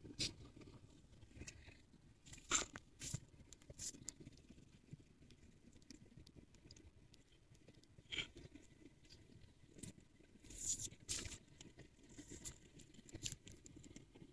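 Quiet cabin of a moving car: a faint low rumble, with scattered small clicks and crackles, the clearest about two and a half, eight and eleven seconds in.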